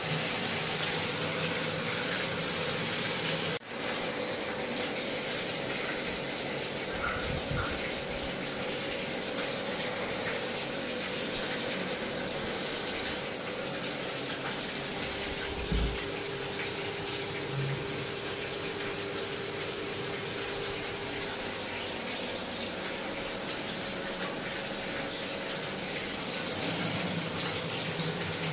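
Pomfret fish pieces sizzling steadily as they fry in hot oil in a steel kadai, with a short break about three and a half seconds in.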